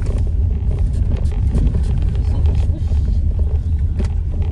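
Steady low rumble of a car's engine and tyres, heard from inside the cabin as the car creeps along.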